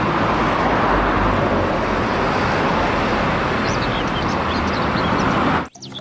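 Street traffic noise with a double-decker city bus driving past: a steady, even rumble and hiss, with a few faint high chirps a little before the end. It cuts off suddenly near the end.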